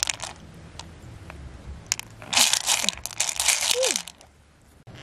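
Loose pearls clattering and clicking against each other and the inside of an open pearl mussel shell as a hand stirs through the heap. It comes in a short rush at the start, then a longer one from about halfway until near the end.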